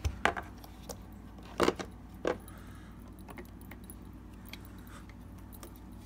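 Clicks and clatter of plastic and metal parts as a Kirby vacuum's power nozzle is handled and fitted back onto the motor unit. There are a few sharp clicks in the first couple of seconds, then only faint handling ticks.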